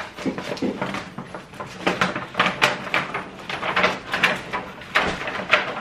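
Clear plastic packaging crinkling and clicking as a box of shatterproof Christmas ornaments is worked open by hand, in irregular sharp crackles and clicks.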